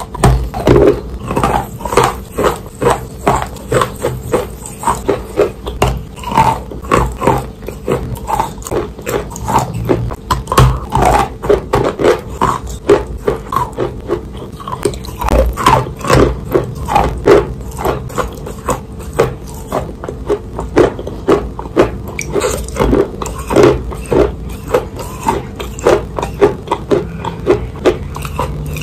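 Soft chalk soaked in water being bitten and chewed close to the microphone: wet crunching in a steady rhythm of about two chews a second.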